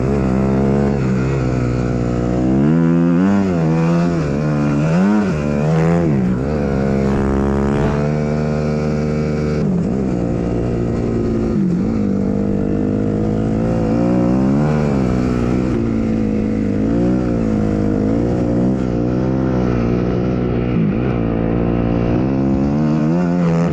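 Engine of a Timbersled snow bike (a dirt bike on a snow track) being ridden, revving up and falling back again and again as the throttle is worked.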